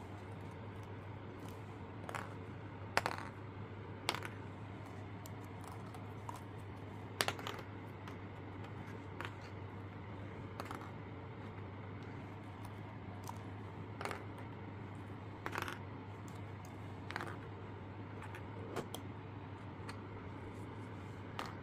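Small plastic miniature balloons being set down one at a time on a hard tabletop: light, sharp clicks and taps every second or two, about ten in all, over a steady low hum.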